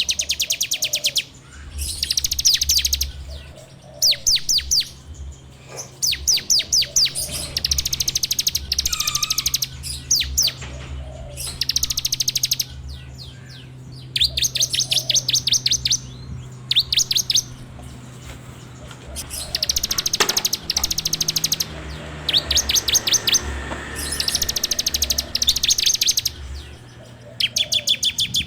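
Bar-winged prinia (ciblek) singing its rapid, dry 'ngebren' trill: fast runs of sharp, high notes in bursts of one to two seconds, repeated again and again with short pauses between.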